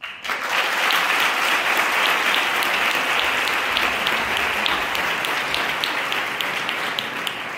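Audience applause, starting suddenly as the introductory speech ends and slowly easing off toward the end.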